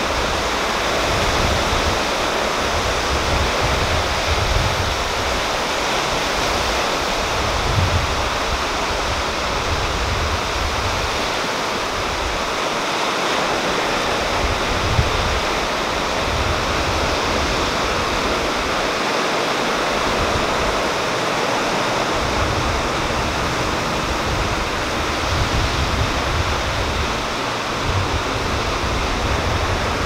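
Small sea waves breaking and washing onto a rocky sand beach: a steady rush of surf with uneven low rumbles.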